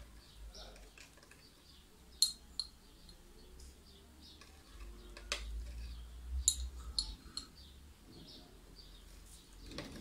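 A small metal spoon clinking and scraping lightly, a few scattered clinks, as baking soda is spooned from a cup into a foil-wrapped plastic bottle for a baking-soda volcano.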